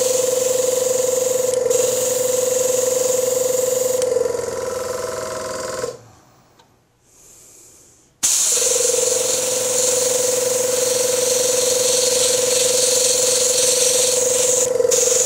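Airbrush spraying paint with a steady hiss over the steady hum of its air compressor. The hiss stops for a moment twice, and the whole sound drops out for about two seconds midway.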